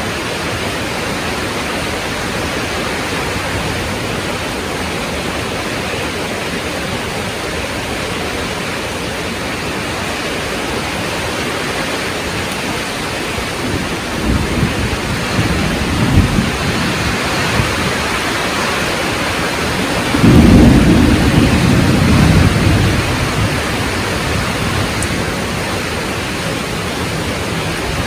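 Heavy rain falling steadily, with thunder rumbling twice: a shorter rumble about halfway through, then a louder one a few seconds later that slowly fades.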